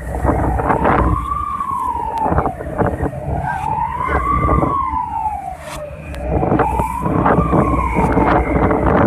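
Emergency siren wailing, its pitch rising and falling slowly about once every three seconds, three times over. Underneath are a low rumble of wind and sea noise and scattered knocks.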